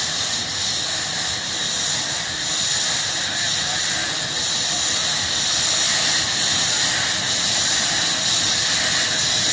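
Steam locomotive hissing as it approaches, a steady loud hiss of escaping steam that grows a little louder.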